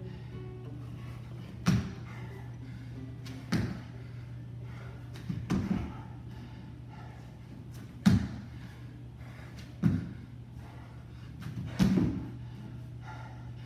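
Dull thuds from a man doing burpees on a hard studio floor, about one every two seconds, six in all, as his body drops and lands. A steady low hum runs underneath.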